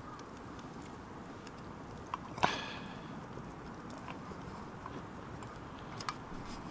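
A single sharp metallic clank with a short ring about two and a half seconds in, with a few faint ticks and knocks over a steady low background.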